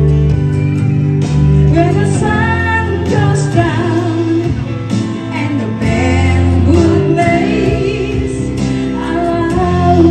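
A woman singing a slow pop ballad into a microphone over a karaoke backing track, her held notes wavering in pitch above a sustained accompaniment.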